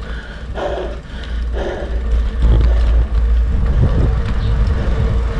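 Wind rumbling on the microphone of a moving road bike, with road noise, loudest about halfway through.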